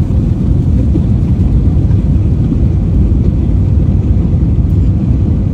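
Airliner cabin noise heard from a window seat: a steady, loud low rumble of the jet engines and airflow.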